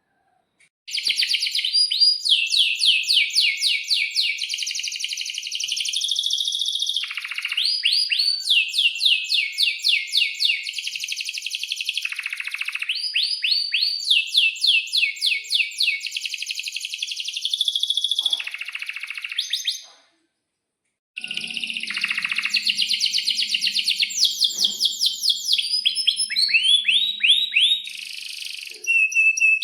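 Domestic canary singing a long, loud song of fast trills and rolling phrases, with a brief stop about two-thirds of the way through before it starts again.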